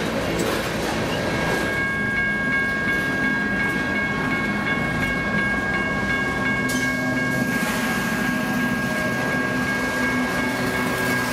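Freight cars rolling past on the rails with wheel clatter, a steady high-pitched tone ringing over it from about two seconds in. In the second half the deeper engine hum of a passing mid-train GE AC4400CW diesel locomotive, working as distributed power, joins in.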